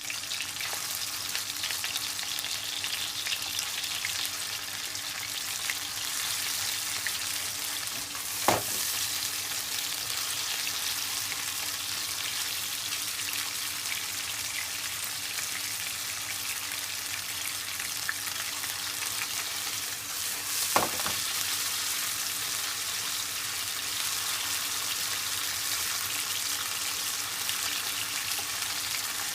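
Food sizzling steadily in a hot frying pan as stir-fry ingredients cook. Two sharp knocks against the pan come about eight and twenty-one seconds in.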